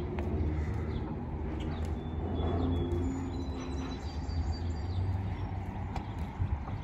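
Small birds chirping and calling, short high whistled notes, over a steady low rumble. A few light knocks of footsteps on wooden dock planks.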